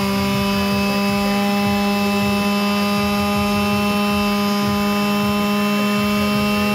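Corded DeWalt quarter-sheet palm sander running at a steady speed, a constant buzzing hum, with its vibrating pad pressed against a man's chin and face.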